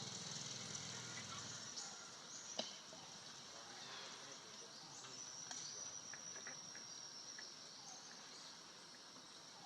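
Faint outdoor ambience of insects chirring in a steady high drone, with scattered small clicks and one sharp click about two and a half seconds in.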